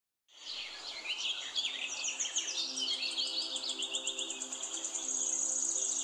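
Several birds chirping and calling in quick, overlapping notes, with a rapid high-pitched trill through the second half.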